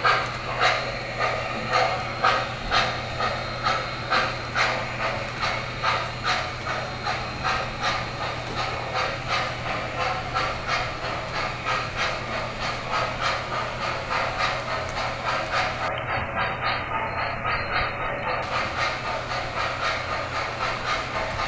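O-gauge model steam locomotive chuffing as it runs, in a steady rhythm that gets faster and a little softer as it goes, from about one and a half to about two and a half chuffs a second, over a low steady hum.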